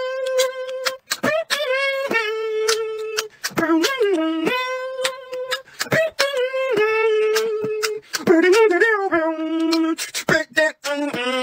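Beatboxing: one voice holds a melody in long sustained notes that step up and down in pitch. Sharp mouth clicks and percussive beatbox hits break in between the notes.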